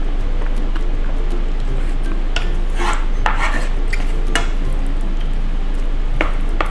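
A fork scraping and clinking against a plate of linguine. A run of scrapes comes in the middle, then two short clinks near the end.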